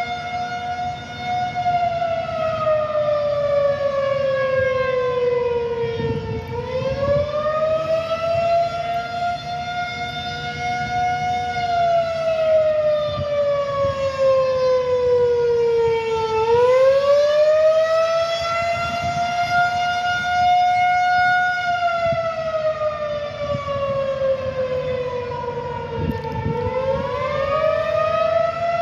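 Outdoor tornado warning siren sounding a test in a slow wail: its pitch slides down over several seconds, sweeps back up, holds, and slides down again, three times.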